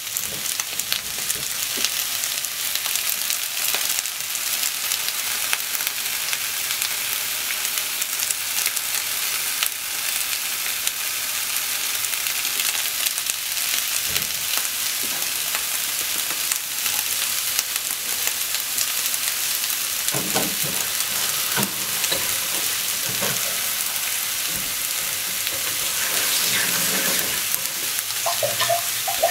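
Cabbage and enoki mushrooms sizzling steadily in a frying pan as they stir-fry, with a constant crackling hiss. A few soft knocks come about two-thirds of the way through.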